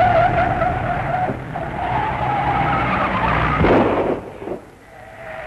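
Car-chase sound effects from an old film soundtrack: a long, steady squealing tone, broken briefly about a second and a half in, then a loud rushing noise near the end that quickly fades.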